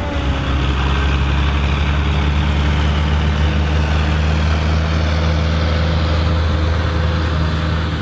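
Mercedes-Benz MB Trac 800's diesel engine running steadily under load, powering a Taarup 101 forage harvester as it chops maize. A dense, even rush from the harvester and chopped crop sits over the engine's low hum.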